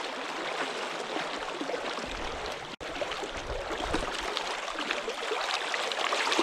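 Creek water rushing steadily over a shallow riffle. It cuts out briefly about three seconds in.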